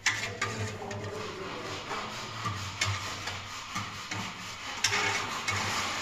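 Building-site work noise: scattered knocks and a stretch of scraping over a low, unevenly pulsing hum.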